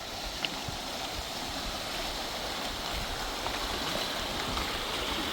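Rushing river water, a steady noise that grows a little louder over the few seconds; the river is swollen and rising.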